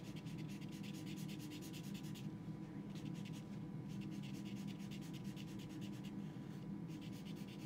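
Black Sharpie felt-tip marker colouring in on watercolour paper: fast back-and-forth scratchy strokes that pause briefly a couple of times, over a steady low hum.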